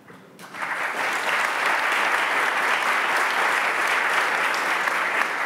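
Audience applauding: the clapping starts about half a second in, swells within a second and then holds steady and dense.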